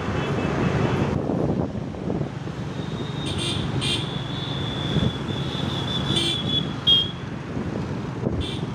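A motorcycle ridden through traffic, its engine running under steady road and wind noise. From about three seconds in, a shrill vehicle horn sounds in several short toots, the loudest near seven seconds, with one more toot near the end.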